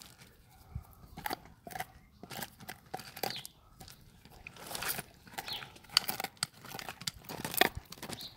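Siberian husky gnawing on a large bone: irregular crunches and sharp cracks of teeth on bone, a couple of louder cracks near the end.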